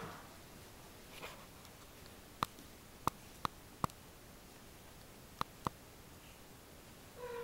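A house cat gives a short, low call near the end, with another just ending as it begins; between them it is quiet apart from six sharp clicks, in a run of four and then a quick pair.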